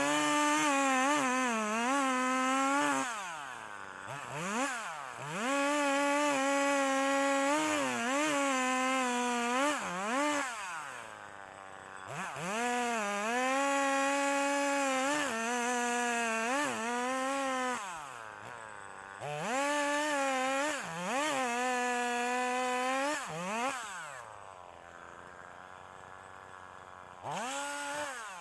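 Husqvarna 340e two-stroke chainsaw cutting up a felled chestnut tree for firewood. It runs at full throttle, drops back toward idle several times between cuts, idles quieter for a few seconds, then revs up again near the end.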